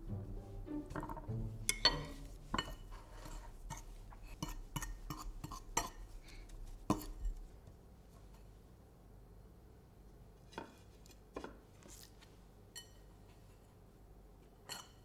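Cutlery and dishes clinking and knocking in a run of quick, irregular taps, thinning out to a few scattered clicks about halfway through.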